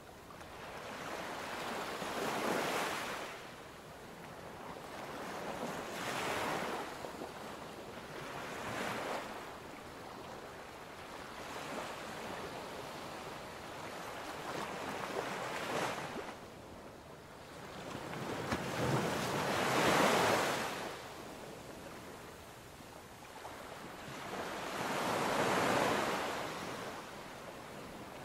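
Ocean waves surging and washing back, swelling and fading every few seconds, the biggest surge about two-thirds of the way in.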